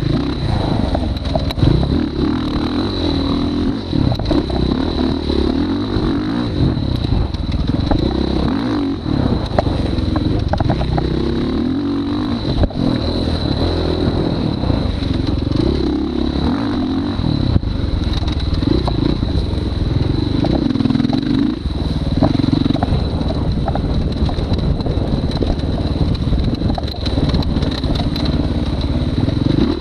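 Dirt bike engine running hard around a short dirt track, revving up and easing off every second or two through the corners and straights, with a steady high-pitched tone underneath.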